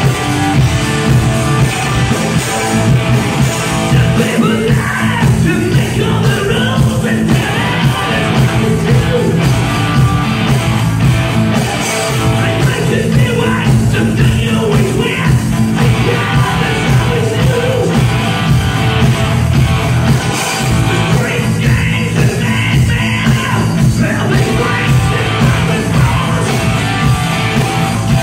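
Hard rock band playing live: electric guitars and drums at full volume, with a male lead singer's vocals coming in and out, heard from within the concert crowd.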